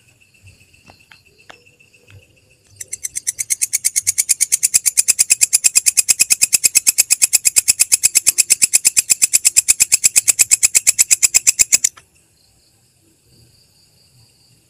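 A belalang kecek katydid calling: a loud, fast pulsed trill of about eight to nine pulses a second that swells in about three seconds in, holds steady and stops abruptly near the end. Fainter continuous high insect buzzing is heard before and after the trill.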